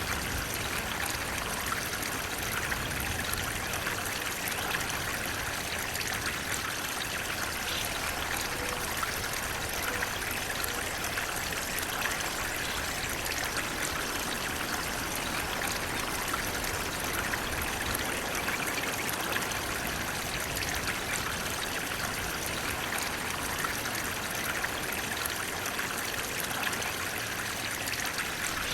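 Flowing water running steadily, an even, unbroken splashing sound with no pauses or changes.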